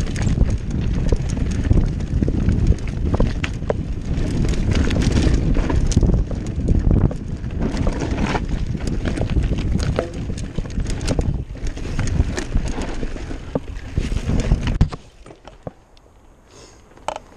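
Wind buffeting the camera microphone and the rattle and clatter of a Commencal Meta AM V4 mountain bike riding fast over loose rocks, with many sharp knocks. About fifteen seconds in the noise drops suddenly to quiet rolling with a few ticks.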